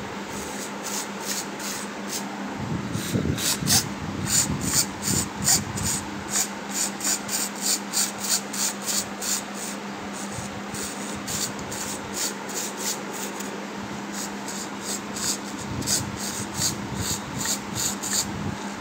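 Micro servo on an RC plane wing whirring in quick short bursts, two or three a second, as it drives both ailerons back and forth through their pushrods, over a steady low hum.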